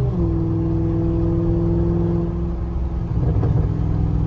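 Audi S8 engine and catless exhaust under way: the engine note jumps up in pitch just after the start, like a downshift, then holds steady as the car cruises.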